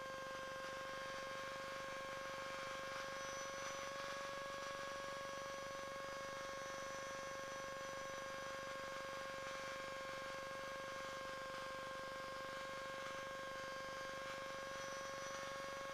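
Faint, steady electrical hum with a light hiss.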